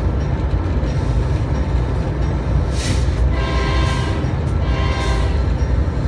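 Moving train heard from aboard: a steady low rumble throughout. About three seconds in, the locomotive horn sounds one held multi-tone note for roughly two seconds.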